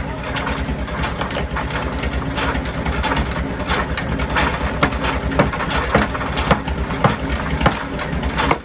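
Sawmill engine running steadily with a fast low throb. From about halfway through come sharp knocks, about two a second.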